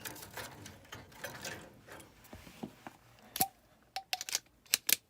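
Small clicks and rattles of handling a Trane gas furnace's control board and its wiring connectors as it is taken off, turning into a run of sharp clicks in the second half, with a few short squeaks.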